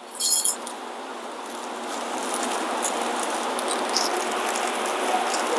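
Small metal brake-pad hardware clips jingling briefly as they are picked up and handled, followed by steady low noise with light scattered clicks of handling.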